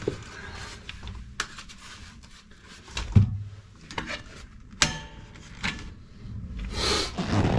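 Metal stove parts clinking and knocking as the log retainer is fitted behind its lugs in a wood-burning stove: about half a dozen separate sharp knocks, with light scraping between them.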